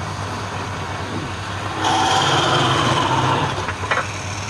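Woodturning lathe running with a steady hum; about two seconds in, a louder, higher cutting noise for about a second and a half, as a tool bites the spinning wood, then a sharp click.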